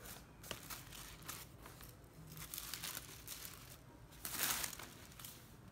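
Thin tissue wrapping paper rustling and crinkling as it is unfolded by hand, in short irregular bursts, with the loudest crinkle about four and a half seconds in.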